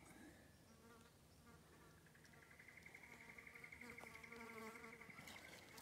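Faint buzzing of flying insects, flies or bees, wavering around the microphone. From about two seconds in, a high, fast trill at a steady pitch joins it.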